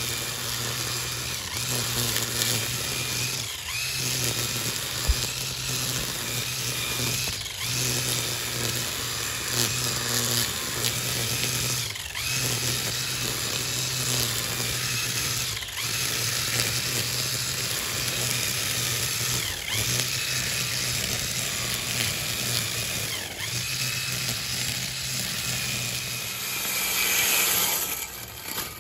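A 24 V DC electric brush cutter's motor running at high speed with a steady whine as its blade cuts through grass. The sound dips briefly every few seconds.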